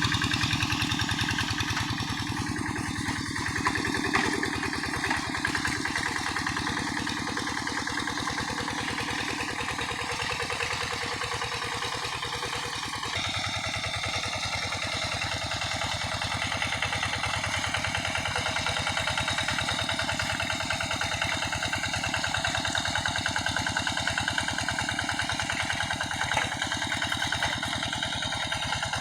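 Quick G1000 hand tractor's single-cylinder diesel engine running steadily under load while it harrows wet paddy mud. The engine sound changes abruptly about halfway through.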